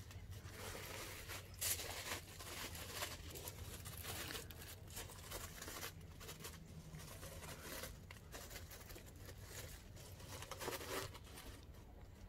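Irregular rustling and crackling of a handheld phone camera being carried and handled while walking, with a steady low hum beneath.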